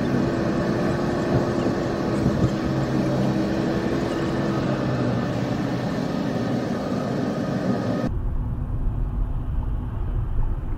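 Car road and engine noise heard inside the cabin while driving on a highway: a steady rushing hiss with a faint hum in the first half. About eight seconds in the hiss drops away suddenly, leaving a low rumble.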